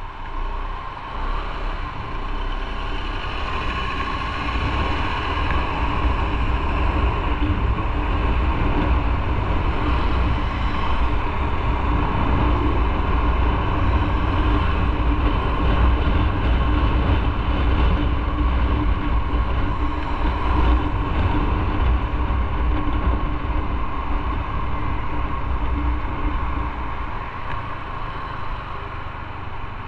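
Motorcycle riding along a road: engine running under a heavy low rumble of wind and road noise. It grows louder over the first several seconds and eases off a little near the end.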